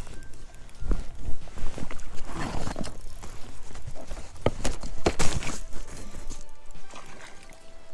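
Background music, with irregular knocks and splashes of water against a float tube.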